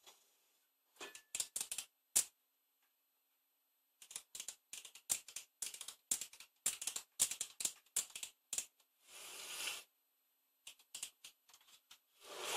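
Rotary switches and knobs on a Hameg HM303 oscilloscope's front panel being turned back and forth by hand, giving a quick irregular run of clicks, to work freshly sprayed contact cleaner into the switch and potentiometer contacts. Two short hissing bursts come near the end.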